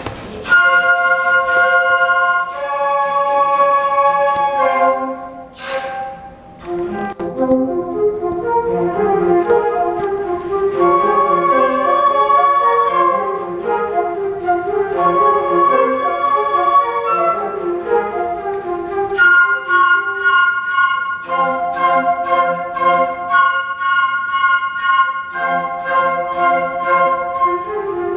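A flute choir playing held chords over a fast repeated-note pattern. About six seconds in, a brief rush of air noise cuts across the music.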